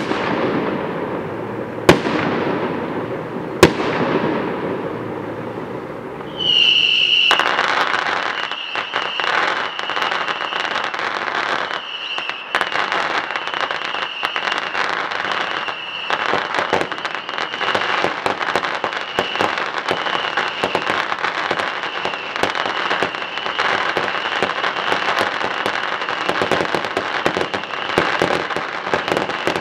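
Aerial fireworks display: a few sharp shell bursts with echoing tails, then from about six seconds in a dense, continuous crackling of many bursts with a high tone that pulses about once a second.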